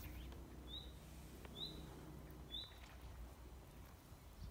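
A small songbird calling: a short, high chirp repeated three times, about a second apart, over a low steady rumble.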